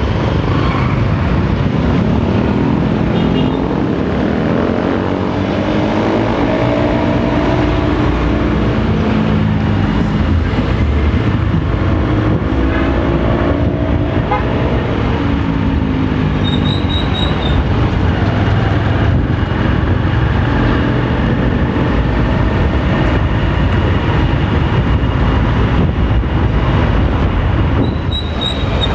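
Honda motorcycle engine running under way, with wind and road noise on the microphone; its pitch climbs and falls back twice as the rider accelerates and eases off.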